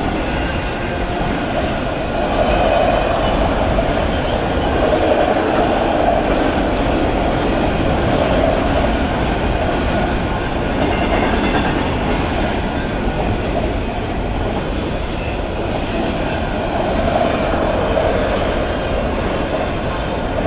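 Autorack freight train rolling past a grade crossing: a continuous loud noise of the cars' wheels running on the rails, swelling a little now and then.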